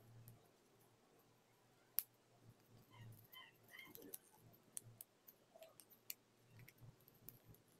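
Faint rustling and creasing of paper being folded by hand, with scattered small clicks and one sharper click about two seconds in.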